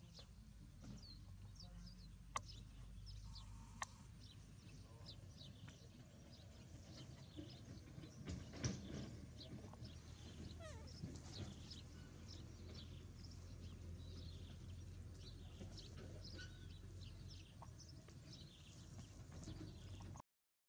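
Faint high-pitched animal chirps and squeaks, many short calls in quick succession, over a low steady hum. Two sharp clicks come a few seconds in, and there is a louder knock about eight and a half seconds in.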